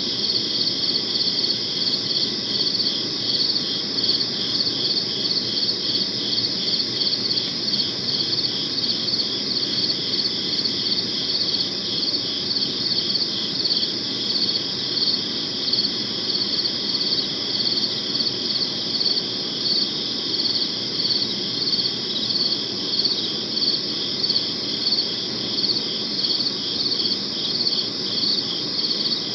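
Crickets chirping in a steady, continuous pulsing trill, with a faint low background hiss beneath.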